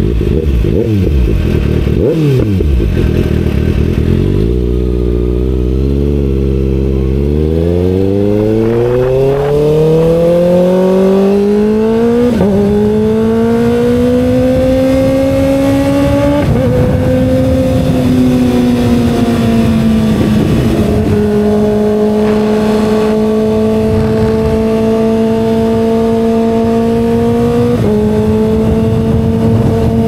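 2024 Kawasaki Ninja ZX-6R's 636 cc inline-four engine accelerating hard, its pitch climbing steadily from low revs, with quick upshifts about twelve and sixteen seconds in. From about twenty seconds it settles into a steady cruise, with another shift near the end.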